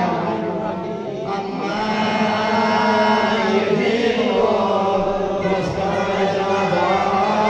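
Voices chanting a devotional Islamic recitation in long, drawn-out notes, the pitch holding and gliding without a break.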